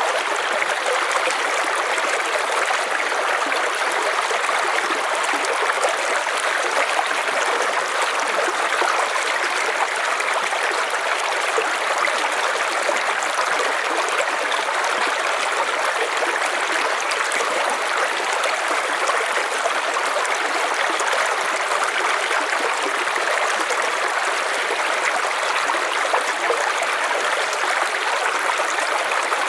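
River water flowing and rushing over stones in a steady, even stream.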